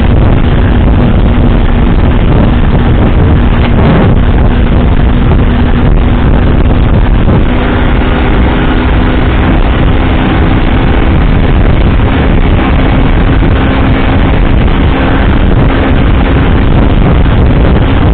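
Vehicle on the move heard through a low-quality dashcam microphone: steady, loud engine and road rumble, with a steady engine hum that grows stronger about seven seconds in.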